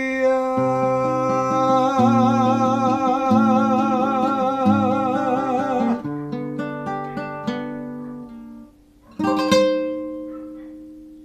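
A man's voice holds the song's final sung note with vibrato for about six seconds over fingerpicked acoustic guitar. The guitar plays on alone, then ends on a chord struck a little past nine seconds in that rings and fades away.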